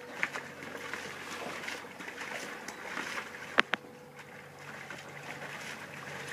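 Two dogs wading and splashing in the water of a plastic kiddie pool, with a sharp knock about three and a half seconds in.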